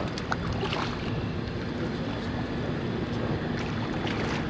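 Wind buffeting the microphone over steady boat-and-water ambience, with a few light clicks and knocks.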